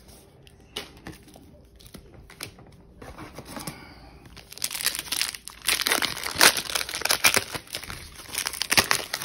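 Foil trading-card booster pack being crinkled and torn open by hand. Only faint handling sounds at first, then dense crinkling from about halfway through.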